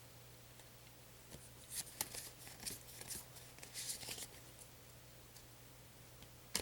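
Faint brushing swishes of Yu-Gi-Oh trading cards being handled and slid past one another, a handful of short strokes in the middle stretch, over a low steady hum.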